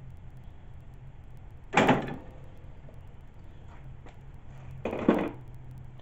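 Two short clunks with rustle, about three seconds apart, from a crimping tool and hands working at the kill-switch wiring on a mower handle, over a low steady hum.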